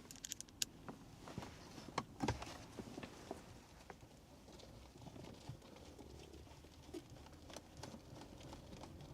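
Faint, irregular clicks and light taps as bolts are handled and fitted back into a car's dashboard, with a few sharper ticks scattered through.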